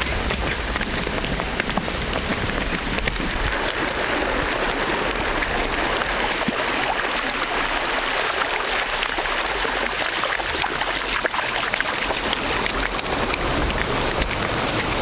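Steady rush of shallow water with the hooves of ridden donkeys splashing and clattering on stones, many small clicks over the running water.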